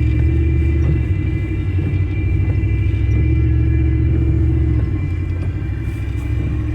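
Low, steady rumble of a car's engine and tyres on slushy, snowy road, heard from inside the cabin while driving. The deep rumble eases a little about five seconds in.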